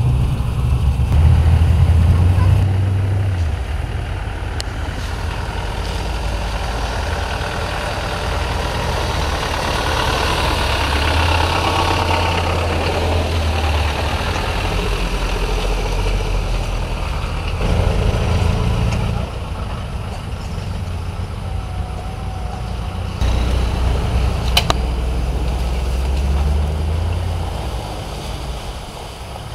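Land Rover four-wheel-drive engines running at low speed as the vehicles crawl through mud, the low engine note rising and falling from shot to shot. One sharp click near the end.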